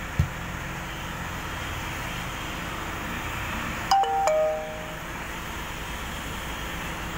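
Steady hiss of an electric heat gun blowing hot air at a car windshield to heat window film. A low thump comes just after the start, and about four seconds in a short chime of a few falling notes sounds over it.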